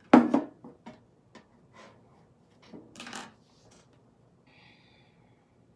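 A white plastic pitcher set down upright on a tabletop with a hollow knock, followed by a few fainter scattered knocks and taps.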